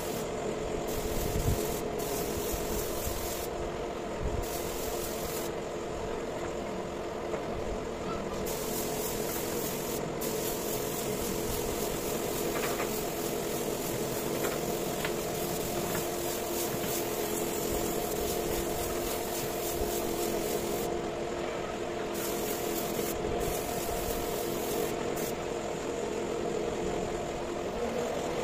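Compressed-air spray gun hissing as it sprays finish onto teak tabletops, the hiss cutting out briefly several times as the trigger is let go, over a steady motor hum.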